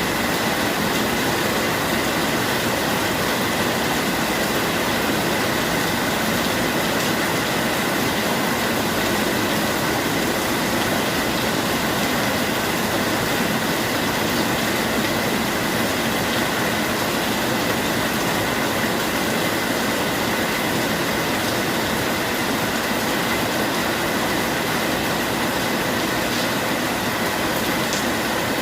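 Steady heavy rain, an even unbroken hiss with no changes.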